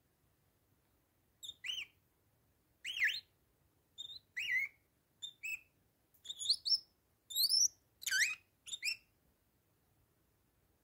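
Bourke's parakeet calling: a string of about a dozen short chirping whistles that bend up and down in pitch, starting about a second and a half in.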